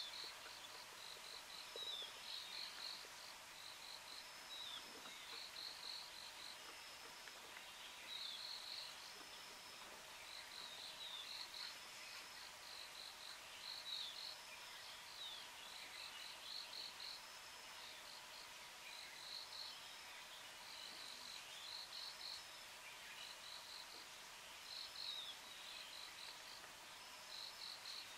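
Faint natural ambience: insects chirping in short repeated bursts of trills every second or two, with a few brief falling calls.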